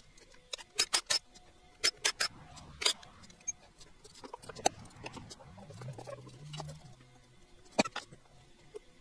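About ten sharp, scattered clicks and clinks of hand tools and engine parts being handled during the teardown, most of them in the first three seconds.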